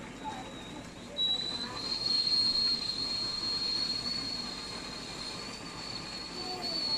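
Steam whistling out of a closed stainless-steel idli steamer on the boil: one steady high whistle that swells sharply about a second in and holds.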